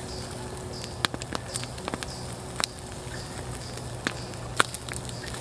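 Wood campfire crackling with sharp, irregular pops, the loudest about four and a half seconds in. A faint high pulse repeats about twice a second underneath.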